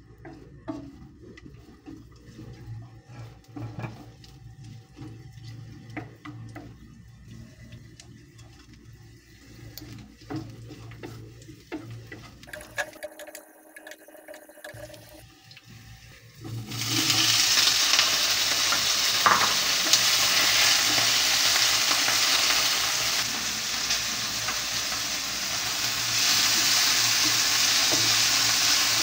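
A wooden spatula stirring garlic in olive oil in a ceramic frying pan: quiet light sizzling with soft taps and scrapes. About 17 seconds in, a loud steady sizzle starts as cherry tomatoes fry in the hot oil and are stirred.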